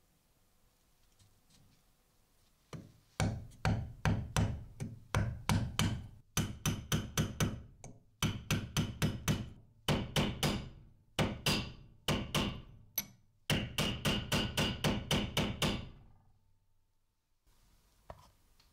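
Hammer blows on a steel punch driving a glued wooden wedge into an ash hammer handle in the head's eye. The blows come quickly, about four a second, in several bursts with short pauses, and each one rings briefly. They start about three seconds in and stop around sixteen seconds.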